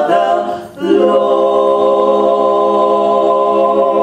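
Women's a cappella trio singing a gospel song in three-part harmony: a short sung phrase, then a final chord held steadily from about a second in.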